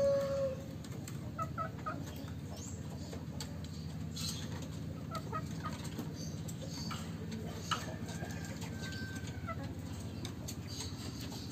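Fowl clucking softly: short faint calls in small clusters, with a louder call right at the start and a longer drawn-out note near the end, over a steady low hum.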